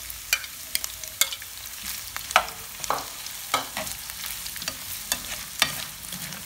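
Freshly added pork pieces frying with onions in hot oil in a black frying pan: a steady sizzle under irregular scrapes and knocks as a spoon stirs them against the pan, the loudest knock about two and a half seconds in.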